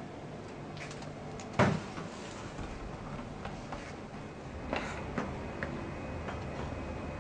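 Kitchen handling sounds as the cooked terrine is dealt with: one heavy clunk about one and a half seconds in, then a few lighter knocks and clicks, over a steady faint hum.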